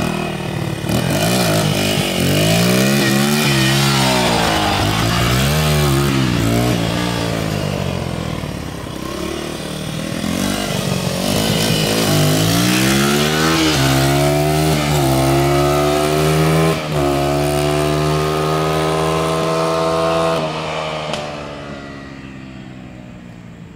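Small dirt bike engine revving up and down several times as it rides. Then it climbs in pitch, holds a high steady note, and dies away about three seconds before the end.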